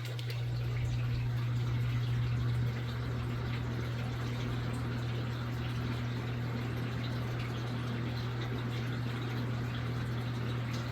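Toastmaster 20-inch box fan, model 4433, running on low: a steady low motor hum under a soft rush of air, quiet after fresh oiling. The trickle of a turtle tank's water filter carries over the fan.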